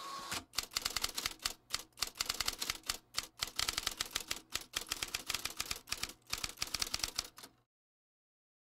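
Typewriter keys clacking in quick runs as on-screen text is typed out letter by letter, opening with a short ring, then cutting off abruptly a little over seven seconds in.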